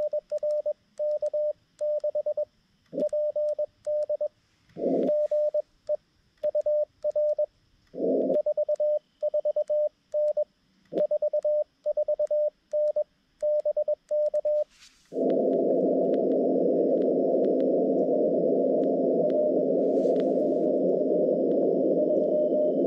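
Xiegu G90 transceiver's CW sidetone: a single-pitch Morse code tone keyed in dits and dahs for about fifteen seconds, with short bursts of receiver hiss in a few of the gaps. Then the sending stops and steady receiver hiss takes over while listening for a reply.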